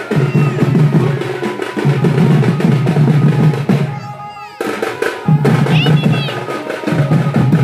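Dhak and tasa drums played in a fast, dense rhythm for dancing, with heavy low drum strokes. The drumming breaks off for about half a second around four seconds in, then starts again.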